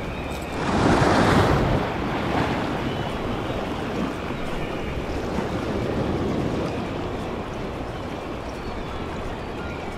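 Sea surf washing and breaking over rocks at the water's edge, with wind buffeting the microphone; a louder surge about a second in.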